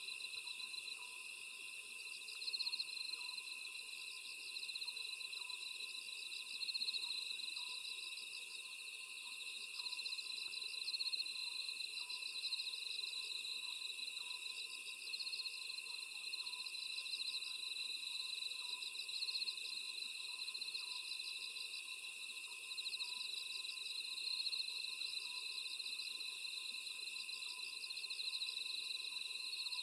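Oriental scops owl calling over and over, a short hoot about once a second, above a steady chorus of crickets and other grass insects, with one insect's chirps coming in regular pulsed bursts every couple of seconds.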